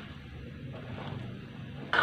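Metal ladle stirring chunks of bottle gourd in boiling soup in an aluminium wok, with a steady low background noise of the boil and one sharp clank of the ladle against the pan near the end.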